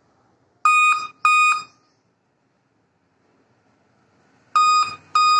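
Dell Inspiron 11 3000 series laptop beeping its start-up error code: two short, high beeps, repeated as another pair about four seconds later. It signals a failed boot with no display, and the two-beep code persists with known-good RAM fitted, which the technician suspects is a BIOS fault.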